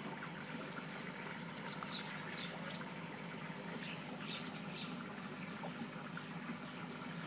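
Steady trickling water over a low, even hum, with a few faint high chirps between about two and five seconds in.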